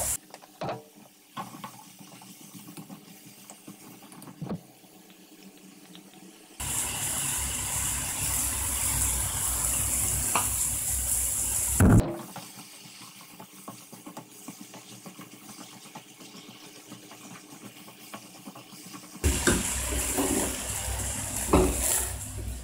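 Pork and vegetables sizzling in a frying pan while a wooden spatula stirs them, with scrapes and knocks of the spatula on the pan. The sizzling is loud in two stretches, from about a quarter to half way through and again near the end, and much quieter in between, with a few sharp knocks.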